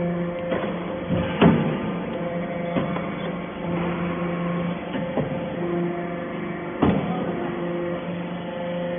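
Hydraulic baler for stainless steel chips running with a steady hum. A few sharp knocks stand out, the loudest about a second and a half in and again near seven seconds.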